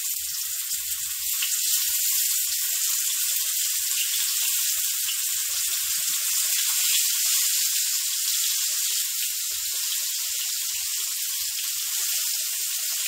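Masala-coated fish pieces sizzling steadily in hot oil on a dosa tawa as more pieces are laid into the oil to shallow-fry.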